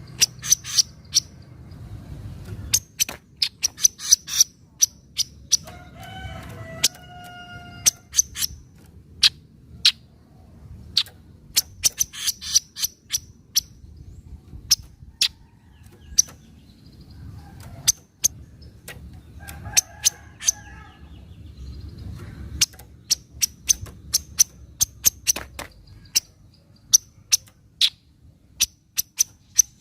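Kaso-kaso bird giving its 'nyecret' chattering call: many sharp, very short notes in irregular quick clusters. A lower call with several stacked tones comes in twice, about a quarter of the way in and again past the middle, over a steady low hum.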